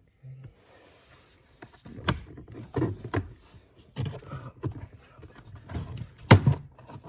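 Hands working plastic interior trim and panels under a car's dashboard: a series of irregular clicks, knocks and scrapes, the sharpest knock about six seconds in.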